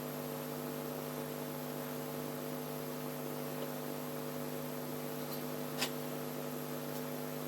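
Steady electrical mains hum, with a single light click about six seconds in.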